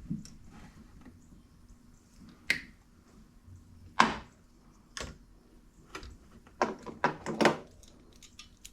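Scattered sharp clicks and knocks of hard parts and tools being handled, about eight in all, with a quick run of three about seven seconds in.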